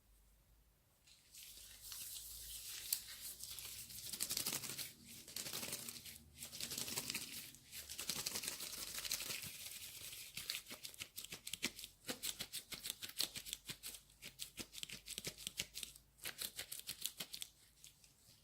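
Close-miked crinkling and rustling of hands working something dry: a dense crackle of fine ticks in long stretches with brief pauses.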